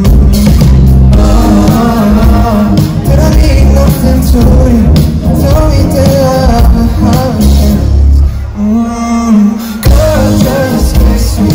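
Live pop music over an arena sound system: a male singer's amplified voice over a backing band with heavy bass. About eight seconds in, the bass drops out for a second or so, then comes back in.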